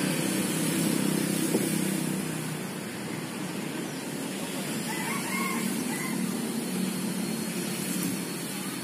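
Engine of a sawmill saw table running steadily, a little louder for the first two seconds or so and then settling slightly quieter.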